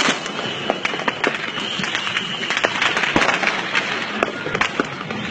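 Aerial fireworks crackling and popping: many quick, irregular pops over a steady background din.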